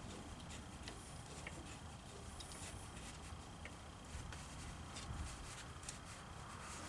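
Faint, irregular light clicks of metal as a bolt is turned by hand into the top of a tractor hydraulic control valve, over a low rumble.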